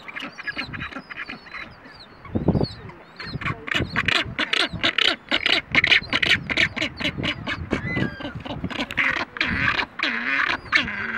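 Rockhopper penguins calling: a rapid, harsh run of pulsed calls, about five a second, starts about three seconds in, and busier calling follows near the end.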